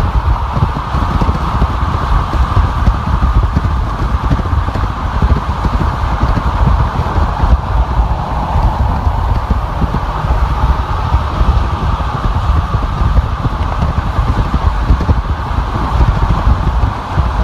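A car driving at freeway speed: steady tyre and wind noise with a deep, fluttering rumble.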